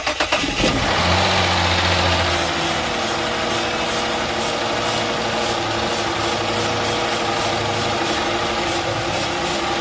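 2007 Dodge Charger engine cranking briefly, then catching and running at a steady idle on fuel sprayed into the intake. It starts only with fuel added, the sign that the fuel pump is not sending fuel pressure.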